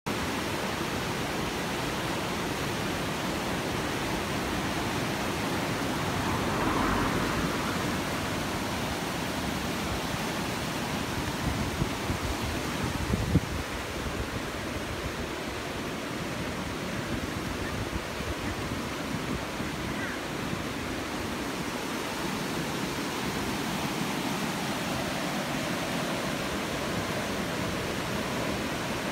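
A river in spate rushing over a weir: the steady, even rush of white water, with a few brief knocks about halfway through.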